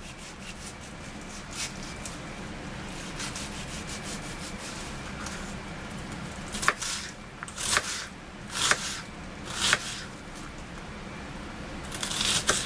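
Chef's knife cutting a yellow onion on a plastic cutting board. First come quick, soft slicing strokes through the onion, then from about halfway sharper cross-cuts knock the blade on the board roughly once a second, with a quicker run of cuts near the end.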